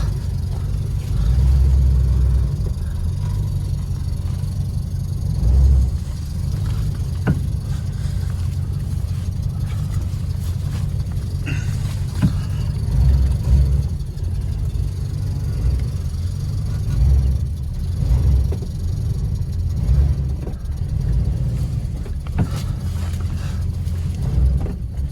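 Car driving, with a steady low engine and road rumble that swells and eases. The gearbox is in second gear.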